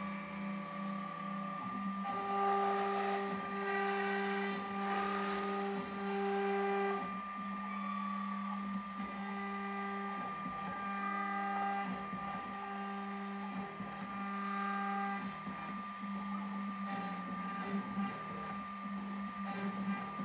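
ShopBot benchtop CNC router carving wood with a V-bit: the router motor runs with a steady whine, while other machine tones switch on and off about every second as the head moves through the cut. The cutting is a little louder from about two to seven seconds in.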